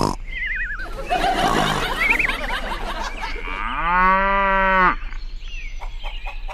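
Cow mooing once, a long call about halfway through that is the loudest sound. It comes after warbling, whistle-like chirps, and light rapid ticking follows it.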